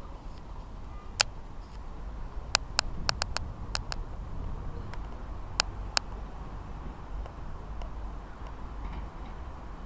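A low, steady outdoor rumble, with a run of sharp clicks, some in quick pairs, between about one and six seconds in.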